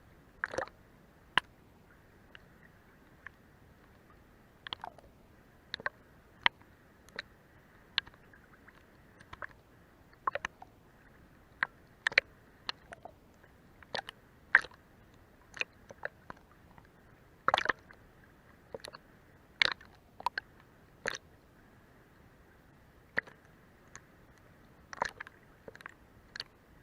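Sea water lapping and slapping under a boat's hull in short, irregular splashes and clicks over a quiet hiss.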